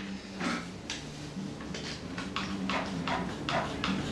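One-handed plastic bar clamp being tightened, its trigger squeezed again and again in a run of sharp ratcheting clicks, settling to about four or five a second from about halfway in.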